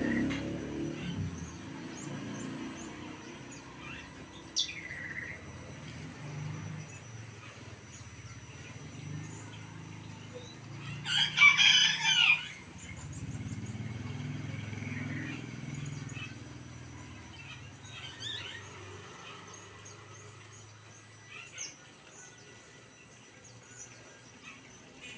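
A rooster crows once, about eleven seconds in, the loudest sound here. Short bird chirps and a falling whistle come and go around it, over a low steady background rumble.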